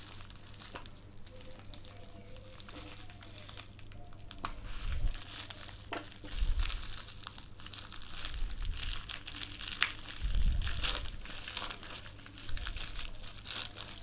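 Plastic courier mailer bag crinkling and crackling as hands pull and tear it open, in irregular bursts that get busier after a few seconds, with a few dull bumps of handling.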